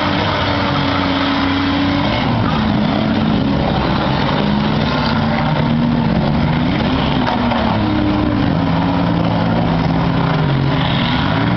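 Several demolition-derby cars' six-cylinder engines running and revving at once, their pitches rising and falling against each other, over a dense wash of engine noise.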